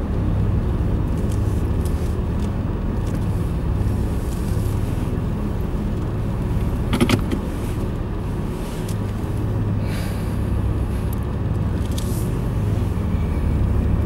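Car driving at night, heard inside the cabin: a steady low engine and road hum, with a brief sharp click about seven seconds in.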